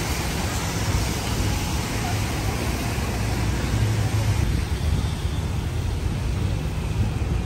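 Steady city street traffic on a rain-wet road: tyres hissing on the wet surface, with a heavy low rumble.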